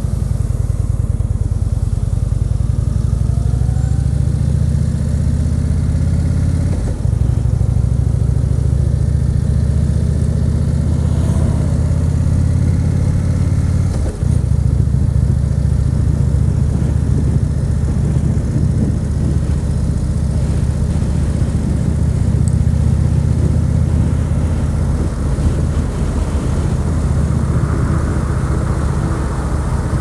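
2014 Indian Chief Vintage's Thunder Stroke 111 V-twin engine running steadily while the motorcycle cruises in traffic, with two brief dips in level about 7 and 14 seconds in.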